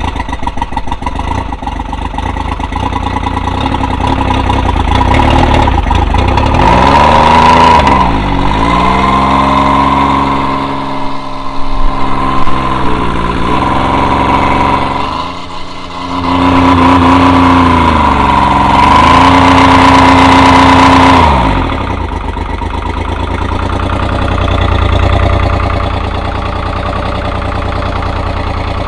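Evinrude 90 hp two-stroke outboard motor running out of the water just after a start, its engine speed rising and dipping several times. About three-quarters of the way in it drops to a lower, steadier idle.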